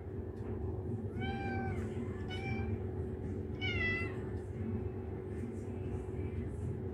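Ginger tabby cat meowing three times: a longer call that rises and falls, a short one, then a higher call that falls in pitch. A steady low hum runs underneath.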